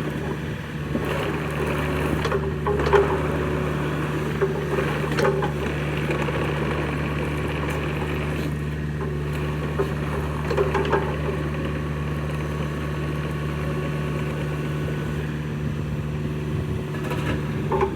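Yanmar 4TNV88C four-cylinder diesel of a 2017 Takeuchi TB240 mini excavator running steadily. Short squeaks and clanks come from the machine several times over the engine's sound.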